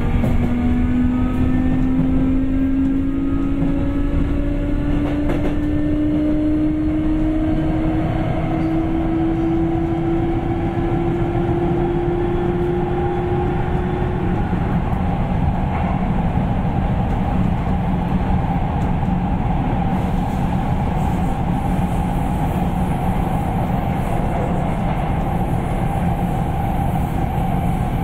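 Sagami Railway 8000 series electric train under power: the traction motor whine rises steadily in pitch for about fourteen seconds as it accelerates, over the rumble of running on the rails. The whine then gives way to a steadier, higher hum.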